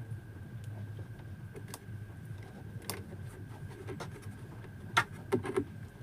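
Scattered sharp clicks and small handling noises of hand tools working on wires as the transformer's two leads are detached, over a steady low hum.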